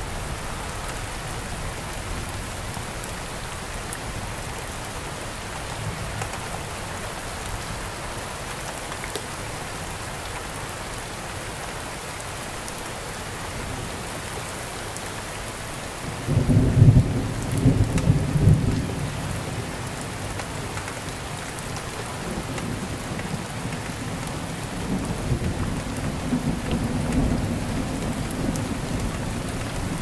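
Steady rain falling on palm fronds and broad leaves, with a loud rumble of thunder breaking in about halfway through and dying away over a few seconds, then a quieter rolling rumble near the end.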